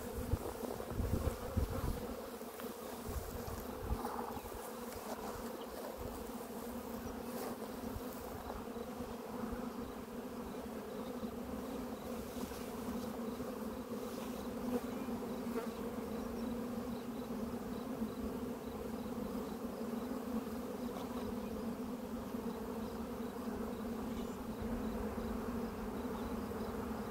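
Honeybees from an opened nucleus colony buzzing in a steady, even hum. A few faint knocks come in the first few seconds.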